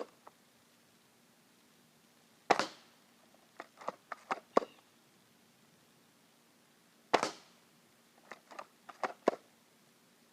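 Wellfire bolt-action airsoft sniper rifle firing two sharp shots about four and a half seconds apart. Each shot is followed about a second later by a quick run of small clicks as the bolt is worked to cock the rifle for the next shot.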